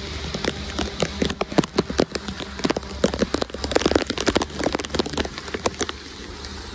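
Heavy rain pattering and splashing on a wet road, with rainwater pouring and churning into a curbside drain inlet.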